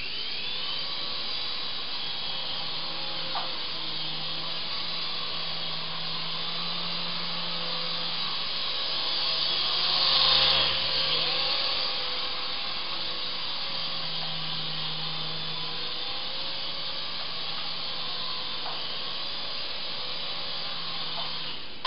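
Syma S109 mini Apache R/C helicopter's small electric motors and rotors whirring in flight, the pitch drifting up and down as the throttle changes. It grows louder about halfway through as the helicopter flies close by.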